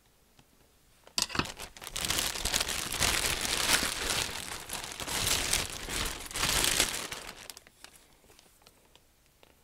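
A clear plastic bag crinkling as it is handled and parts are pulled out of it. It starts about a second in, goes on for about six seconds and fades near the end.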